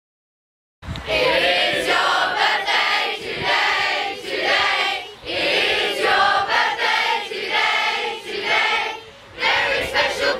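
A large group of children and adults singing together in chorus, starting suddenly about a second in, in short phrases with two brief breaks.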